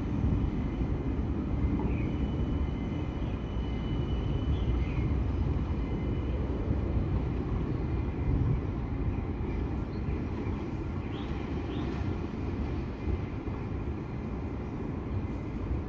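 A light rail vehicle pulling away along the tracks: a steady low rumble that slowly fades, with a brief faint high whine a few seconds in.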